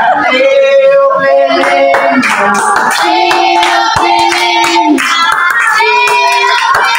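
A group of children singing a birthday song together in a small room, holding long notes, while clapping their hands along.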